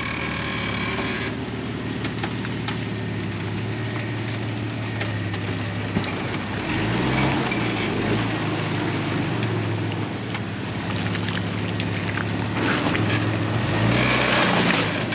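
Jeep engine running steadily, revving up briefly about seven seconds in and again near the end.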